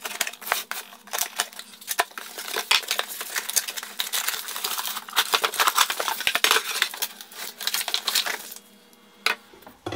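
Cardboard box being opened and unpacked: flaps scraping and folding back, with a dense run of small clicks, crackles and knocks of handling the packaging. It stops about eight and a half seconds in, with one more click a little later.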